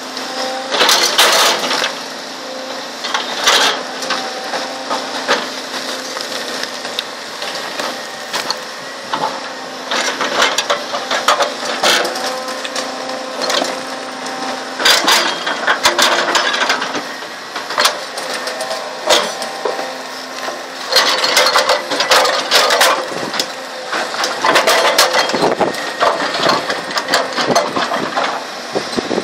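Rock cracking, crashing and grinding as a Volvo tracked excavator's bucket pries stone loose and shoves a large boulder over rubble, with clusters of sharp impacts, heaviest about a second in and again in the second half. The excavator's diesel engine hums steadily underneath.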